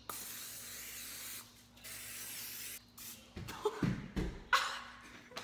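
Pam cooking spray hissing from its aerosol can in two bursts of about a second each, with a short pause between, as a pan is greased. A few louder knocks and handling noises follow in the second half.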